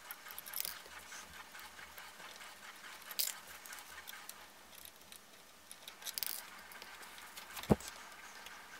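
Faint, scattered clicks and taps of fingers handling the plastic fan shroud and BLTouch mount on an Ender 3 Pro hot end as it is taken apart, with one sharper knock near the end.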